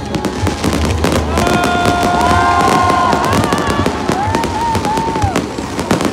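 Fireworks display: dense crackling and banging of aerial shells bursting. In the middle a held pitched tone sounds over them, then three short rising-and-falling tones.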